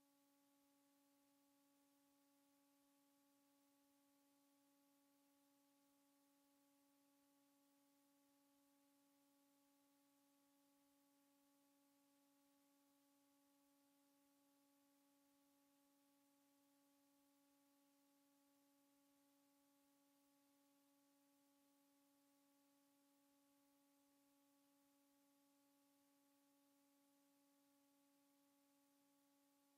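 Near silence: only a very faint, steady hum with a little hiss.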